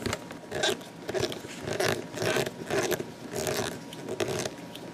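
Small screws driven into a servo's mounting tabs with a screwdriver, a short rasping scrape with each turn, about two a second.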